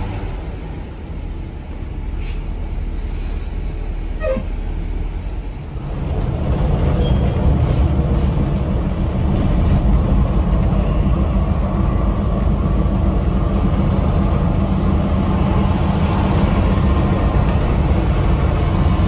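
Cabin noise inside a Mercedes-Benz 1626 NG coach at highway speed: a steady low rumble of engine and tyres that grows louder about six seconds in and stays up as the coach pulls out to overtake another bus.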